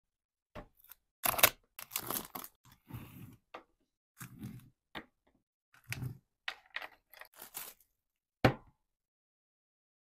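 Handling noise of small metal accessories and their clear plastic bag on a wooden tabletop: crinkling plastic with irregular clicks and knocks, the sharpest about a second and a half in and again near the end.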